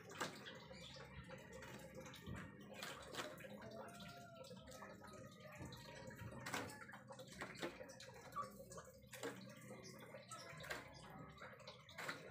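Faint, irregular clicks and taps of chickens pecking at food scraps and a paper wrapper on bare dirt.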